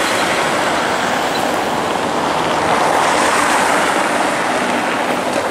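Steady rushing noise of wind on the microphone while cycling, mixed with passing car traffic.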